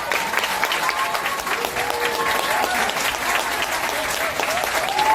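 Audience applauding, with voices heard over the clapping.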